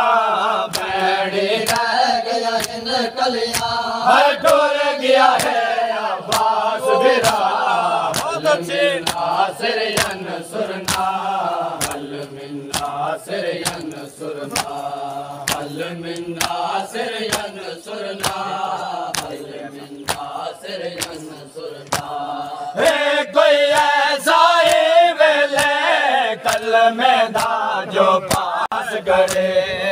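A group of men chanting a noha, a Shia lament, led over a microphone, with a steady beat of chest-beating slaps (matam) keeping time. The chant drops softer partway through and swells louder again about 23 seconds in.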